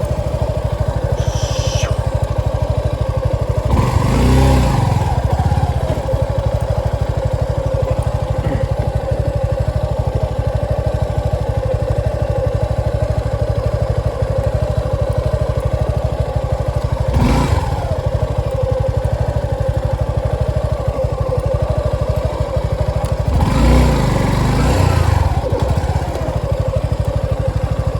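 Motorcycle engine running steadily while being ridden, its pitch dipping and rising briefly three times as the throttle is eased and opened again.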